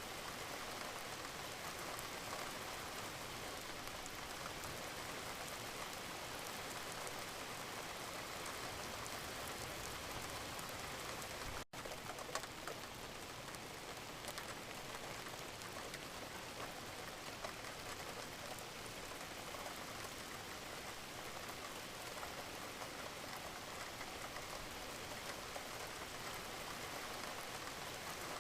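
Steady gentle rain, an even hiss of many fine drops pattering on a surface. It breaks off for an instant about twelve seconds in.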